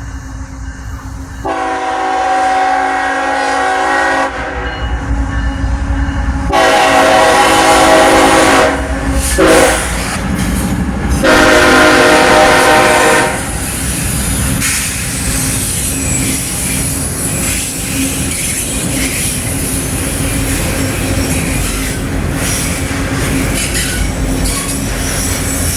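Freight locomotive air horn sounding the grade-crossing pattern: two long blasts, a short one and a final long one. Then the locomotive and its freight cars roll past with a steady loud rumble and wheel clatter.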